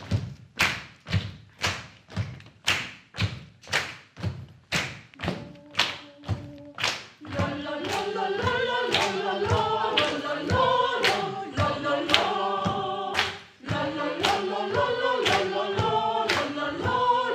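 Group of amateur singers keeping a steady beat with body percussion, about two sharp hits a second. About seven seconds in, the group starts singing together as a choir over the beat.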